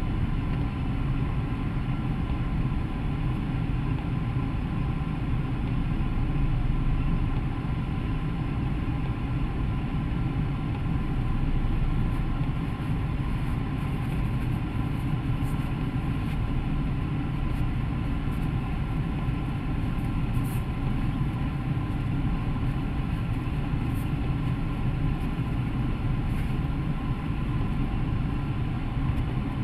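Steady low rumble of a car heard from inside its cabin, unchanging throughout. Faint sharp ticks come now and then from about twelve seconds in.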